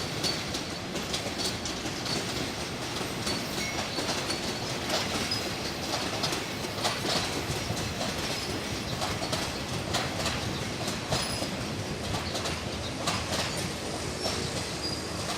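Thai local train's carriages moving on the track, wheels clicking over rail joints and giving short high-pitched squeals, as the train is made up in the station.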